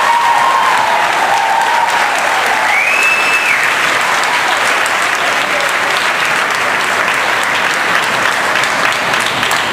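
Audience applauding steadily, with a short high whistle about three seconds in.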